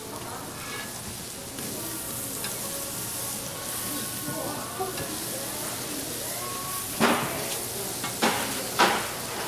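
Food frying on a hot griddle with a steady sizzling hiss. Near the end come three sharp clacks, the loudest sounds.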